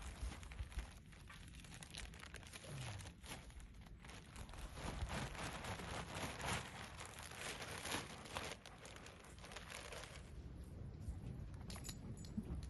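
Gusty wind buffeting the microphone: a rumbling rush with crackly spikes that rises and falls, easing off about ten seconds in.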